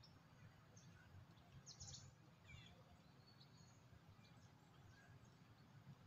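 Near silence: faint outdoor ambience with a few brief, faint bird chirps, the clearest about two seconds in.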